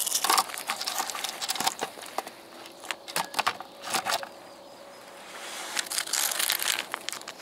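Foil wet-food pouch crinkling and rustling as it is handled and squeezed by hand, in several irregular bursts of crackly rustling.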